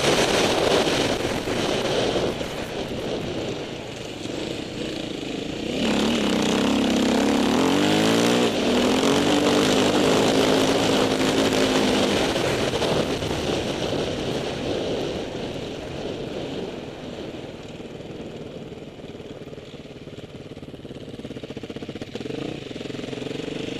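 Off-road motorcycle engine running and revving up and down, with a rush of wind noise. It revs hard from about six seconds in, eases off and fades away, then picks up again near the end.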